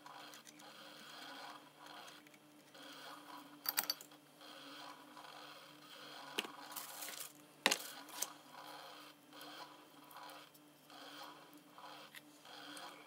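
Faint workbench handling sounds over a steady low hum: light scraping and a few sharp clicks, the loudest a cluster about four seconds in and a single one near eight seconds, as a soldering iron is set back in its stand and wire and tools are handled.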